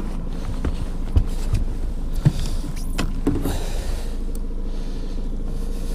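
Boat motor running steadily at trolling speed, a low even hum, with a few sharp knocks from gear being handled on the boat deck.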